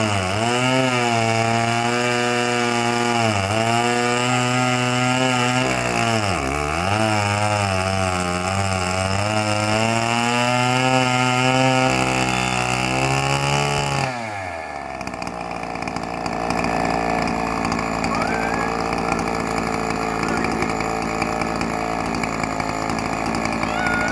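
Yuzhoukee YZ105 105cc two-stroke chainsaw on an Alaskan mill, running at full throttle through a log. Its pitch sags and recovers again and again as it bogs under load in the cut. A little past halfway the high engine note falls away, and a lower, steadier engine sound follows.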